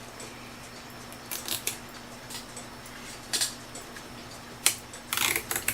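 Nylon zip tie being pulled through its ratchet to cinch around a wound clock mainspring, in a few short rasping pulls.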